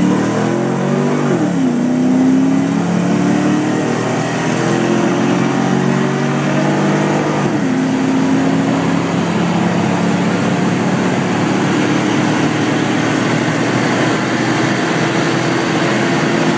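V8 car engine accelerating hard at full throttle, heard from inside the cabin. The pitch climbs, drops at an upshift about a second in, climbs again, drops at a second upshift about seven and a half seconds in, then rises slowly in the higher gear. Steady road and wind noise runs under it.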